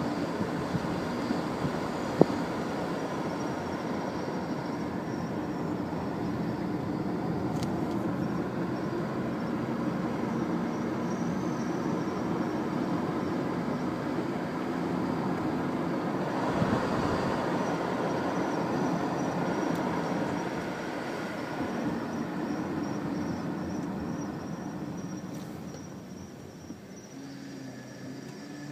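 2002 Volkswagen Passat GLX V6 running with a steady grinding mixed into its engine and road noise, the weird grinding noise its owner is chasing. The noise eases off about 25 seconds in.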